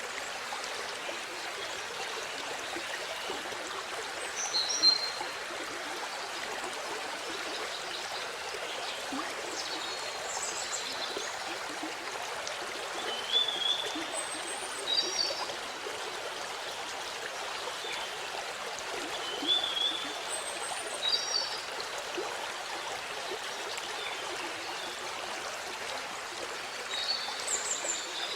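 Waterfall water rushing steadily, an even hiss of falling and running water. Short high chirps cut in over it about seven times.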